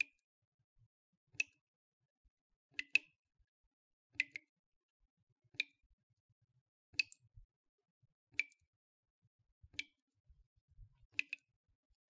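Water dripping from a leaky faucet: single drops falling at an even pace of about one every 1.4 seconds, a few landing as quick double drops.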